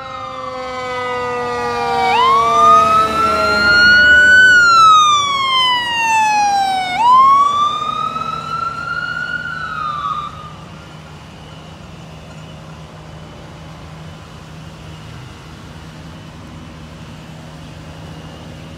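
Fire engine siren on wail, sweeping up and down about every five seconds, with a lower second tone slowly falling beneath it. The siren cuts off about ten seconds in, leaving steady road and engine noise.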